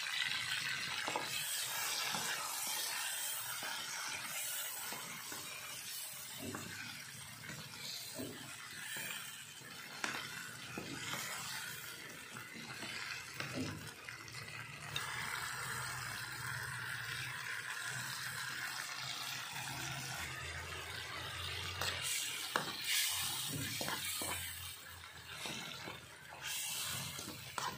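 Tomato-and-chili sambal frying in a wok, a steady sizzling hiss, while a metal spoon stirs and scrapes against the pan with scattered clinks.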